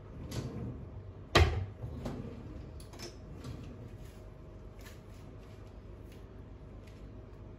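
A single sharp knock about a second and a half in, followed by a few faint clicks and ticks over a steady low hum.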